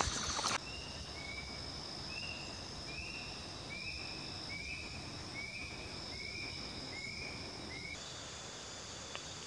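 Steady high-pitched insect drone with a repeated animal call over it: about ten short, evenly spaced notes, roughly one and a half a second. Brushing through leafy undergrowth in the first half-second.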